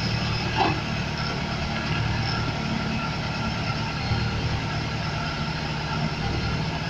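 Heavy diesel engine of a Terex rough-terrain crane running steadily at low revs.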